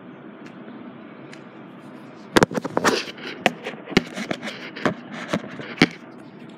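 Phone being handled close to its microphone: a string of sharp knocks and rubbing from about two seconds in until near the end, over a steady low background hiss.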